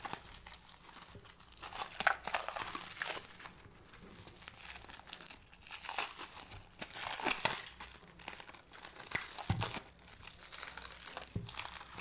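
Clear plastic stretch wrap being pulled and peeled by hand from a stack of comic books, crinkling and crackling irregularly, loud and soft by turns.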